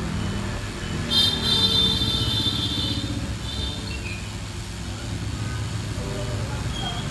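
Steady low rumble of road traffic, mostly motorbike engines. About a second in, a shrill high tone like a vehicle horn sounds for nearly two seconds.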